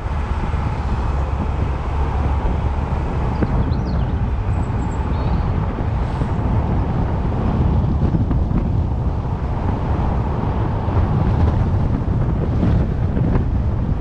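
A car driving along at steady speed, heard from a camera mounted on its outside: wind buffeting the microphone over a constant low rumble of road and engine noise.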